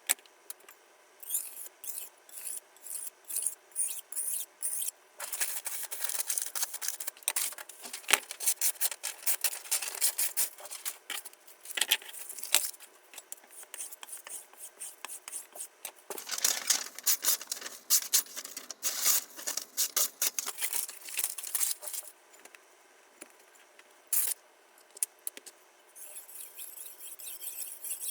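Knife blade stroked across a wet water stone: short rasping strokes about two a second at first, then longer stretches of steady scraping broken by pauses.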